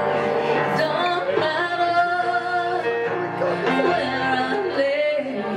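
Live acoustic song: singing over strummed acoustic guitars, with long held sung notes.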